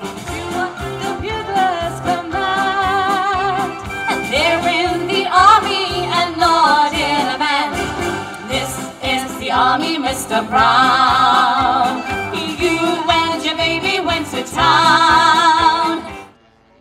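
Three women singing a song in close harmony into microphones, amplified over an instrumental backing track with a steady beat. The music cuts off suddenly near the end.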